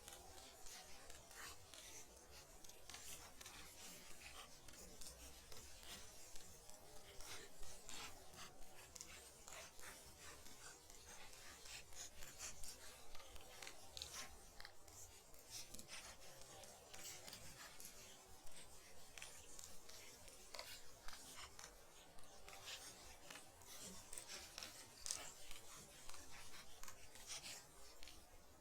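Faint ambience of snow falling in light wind: a soft hiss scattered with irregular small ticks and crackles.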